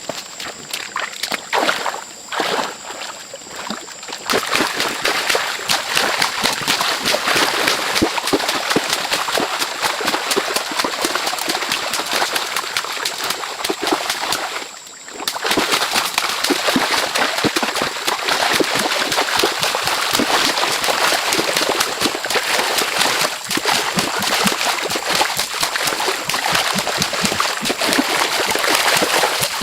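Water splashing and sloshing: a dense run of small splashes, with a brief break about fifteen seconds in.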